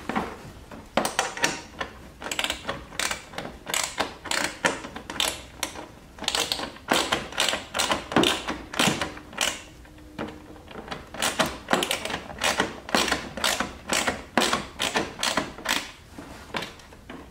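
Hand ratchet clicking as screws are tightened up under a car's rear bumper: repeated sharp clicks, a few a second, in uneven runs.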